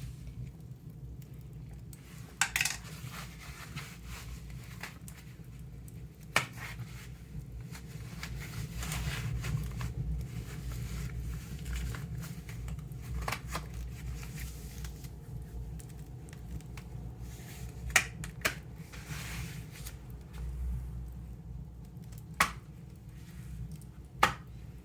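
A paper vacuum cleaner bag burning in a fire: a steady low rumble with a few sharp crackles and pops scattered through.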